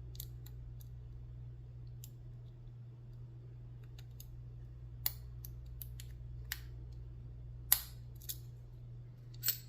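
Small, irregular metallic clicks of a lock pick and tension wrench working the pin stack of a Commando laminated steel padlock while it is single-pin picked, with a few sharper clicks near the end. A steady low hum runs underneath.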